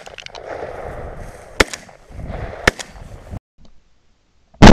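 Rustling of a person pushing through tall dry grass and brush, with a couple of sharp snaps or knocks, then right at the end a very loud shotgun blast.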